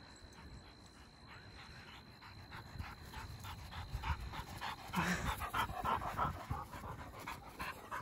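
Hunting dog panting in rapid, even breaths, growing louder about five seconds in as it comes up close. The dog is hard-breathing from running in the heat.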